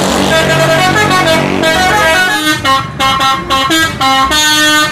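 Coach's multi-tone musical air horn (a 'telolet' horn) playing a tune of changing notes, then a run of short blasts and a longer final note.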